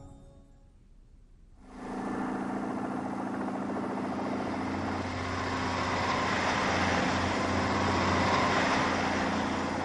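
A truck engine running steadily. It comes in about a second and a half in, as music fades out.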